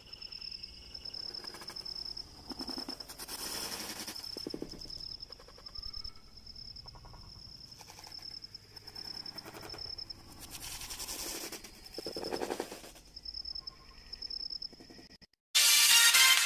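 Insects chirring in a steady high thin tone under quiet outdoor ambience, with two louder rushes of noise along the way. About a second before the end, loud music starts abruptly.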